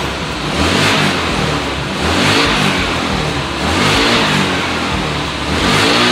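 Motorbike engine being revved in repeated swells, each rising and then easing off, about every one and a half to two seconds.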